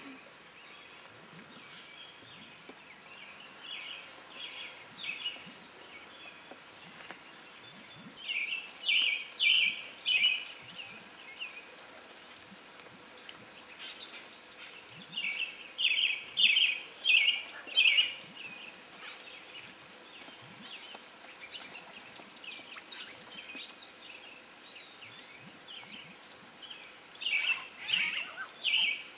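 Outdoor wildlife ambience: a steady high-pitched insect drone, with a bird calling in quick runs of three or four notes that recur every several seconds.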